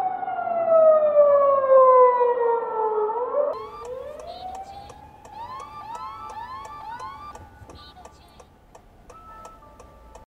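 Unmarked police car's siren wailing, its pitch falling steadily for about three and a half seconds. Then the sound changes abruptly and the siren is fainter, with a run of short rising notes and a steady tone, over light regular clicks.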